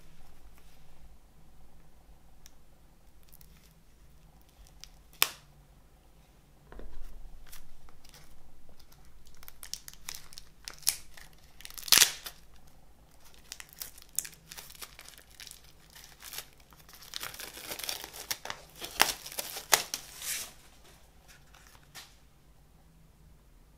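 Clear plastic shrink wrap being torn and peeled off a CD case: crinkling and tearing with sharp crackles, the loudest crack about halfway, and a longer stretch of dense crinkling a few seconds before the end.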